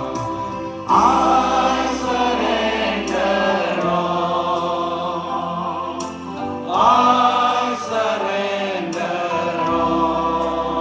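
Choir singing a Christian hymn with sustained accompanying chords, the voices swelling loudly at the start of a phrase about a second in and again around seven seconds in.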